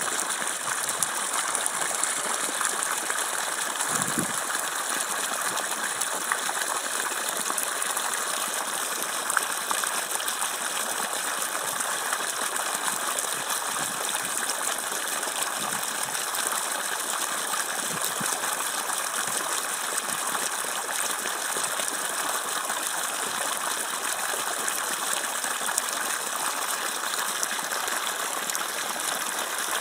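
Water gushing steadily from the open end of a black plastic irrigation pipe and splashing into a flooded planting pit.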